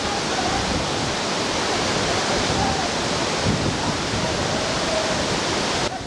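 Kaval Waterfall's water pouring down the rock face and splashing below: a loud, steady rush. The level dips slightly near the end.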